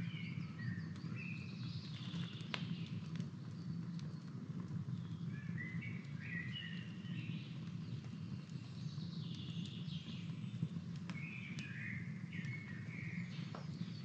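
Wood campfire crackling, with a few sharp pops, while birds chirp and sing in short repeated phrases.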